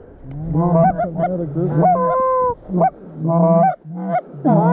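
Hand-held goose calls blown in a rapid series of short honks, with one longer held note about two seconds in, calling to a flock of geese overhead to bring them in.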